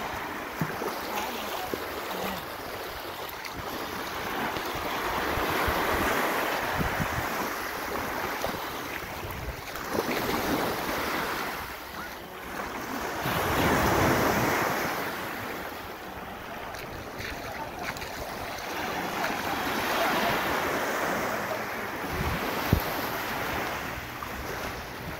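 Small sea waves washing over a sandbank's edges, mixed with wind on the microphone, swelling and fading every few seconds. A short knock comes near the end.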